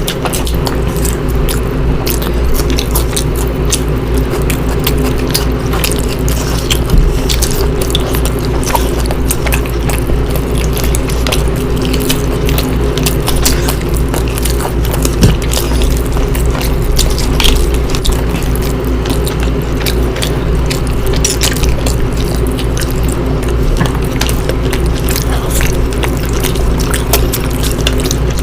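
Close-miked eating of curry and rice: a continuous run of wet chewing, smacking and small mouth clicks, over a steady low hum.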